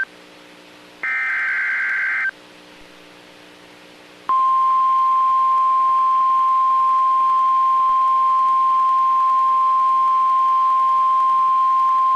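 NOAA Weather Radio emergency alert tones: a burst of warbling SAME data tones about a second in, then after a short pause the single steady 1050 Hz warning alarm tone starts about four seconds in and holds, signalling that a warning (here a severe thunderstorm warning) is being broadcast.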